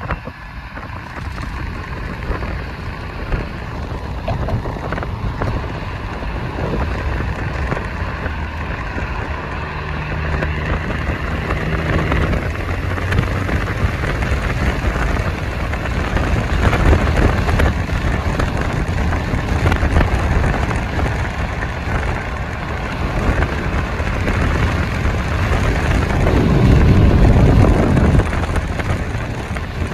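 Road and wind noise of a moving car: a steady rush of tyres and wind, growing louder near the end.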